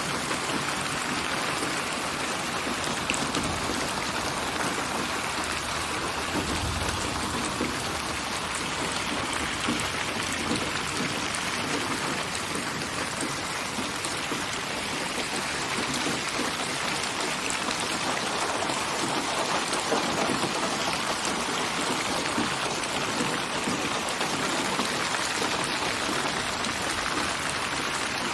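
Steady rain falling on surfaces, with a dense patter of drops. It is a synthetic rain ambience, built from many rain samples and panned around the listener in 3D (8D/HRTF) sound.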